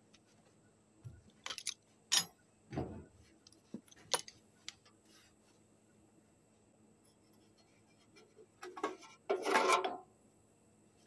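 Scattered metallic clinks, rattles and scrapes from handling the blown-out main bearing of a feed grinder and its loose broken pieces. The loudest is a short burst of scraping and rattling about two-thirds of the way through.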